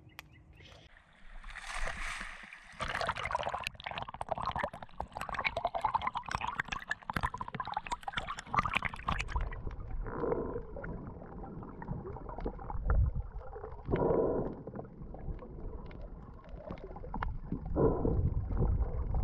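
Water splashing and sloshing against a mask-mounted GoPro at the surface. About nine seconds in the sound turns dull and muffled as the camera goes underwater, with a low water rumble and bubbling that comes and goes about every four seconds.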